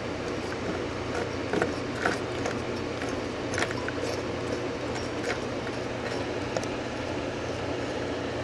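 Opened-up vintage hermetic refrigeration compressor running: a steady electric motor hum and mechanical running noise, with irregular sharp clicks and rattles from the exposed piston mechanism.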